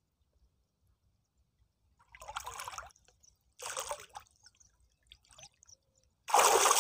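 River water splashing around a person floating face-down: two short splashes about two and three and a half seconds in, then a sudden loud rush of splashing water near the end as he rises up out of the water.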